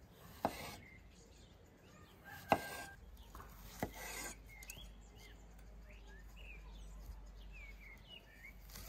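Chef's knife slicing through a fresh mushroom and knocking on a wooden cutting board, three sharp knocks in the first four seconds, each with a short scrape of the blade. Small birds chirp in the background later on.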